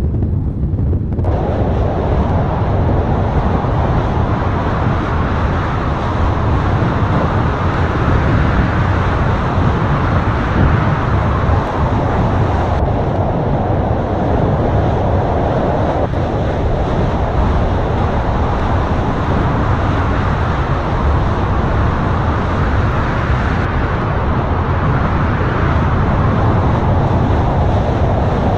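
Mount Etna's lava fountain erupting during a paroxysm: a continuous loud, deep rushing noise that holds steady, filling out abruptly about a second in.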